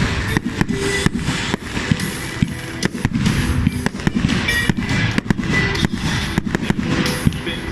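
Fireworks going off in a dense, rapid barrage of bangs and crackling, with music playing underneath.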